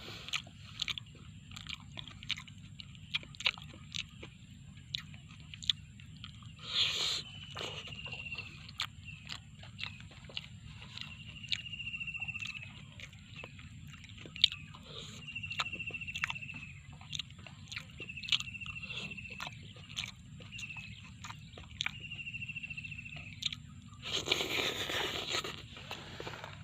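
A person chewing and biting into a meal of fish pecel, with many small irregular crunches and clicks. From about seven seconds in, a short falling whistle-like call repeats every second or two over a steady high-pitched tone.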